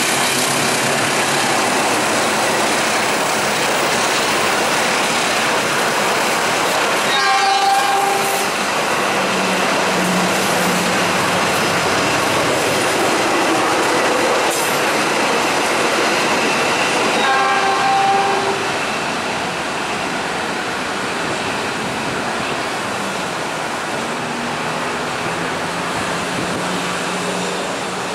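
Passenger train running past with a steady rush of wheels on rails, and a train horn sounding twice, each blast about a second long and roughly ten seconds apart.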